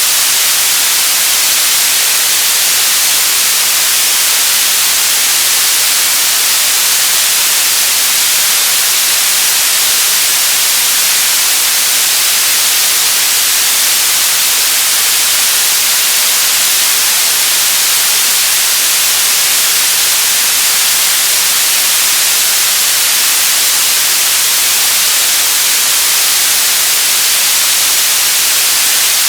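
Television static: a steady, loud hiss weighted toward the treble, unchanging throughout.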